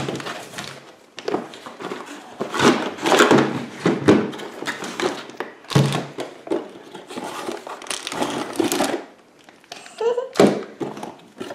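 Cardboard toy box being opened and unpacked by hand: irregular rustling and scraping of cardboard and plastic wrapping, with scattered thunks and knocks as the contents are handled.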